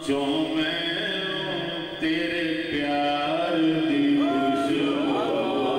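A man chanting Sufi devotional verse into a microphone, in long held notes that bend and glide in pitch.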